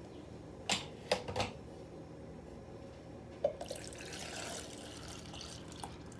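A few light clicks, then milk pouring into a blender jar of blended mango, a soft splashing hiss lasting about two seconds near the end.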